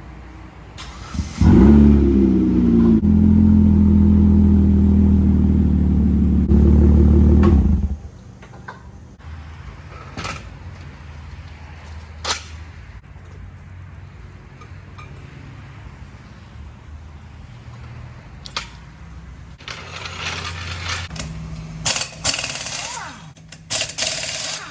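A motor starts with a quick rise in pitch, runs loudly and steadily for about six seconds, then stops. A few sharp knocks follow, and there is clattering near the end.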